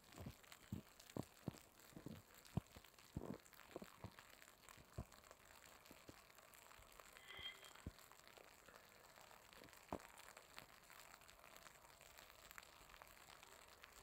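Near silence, broken by faint, irregular clicks and crackles, more of them in the first half, and one brief faint high chirp about seven seconds in.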